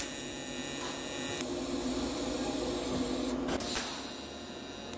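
TIG welding arc tacking steel at about 120 amps: a steady hum with a faint whine. It softens a little after about three and a half seconds.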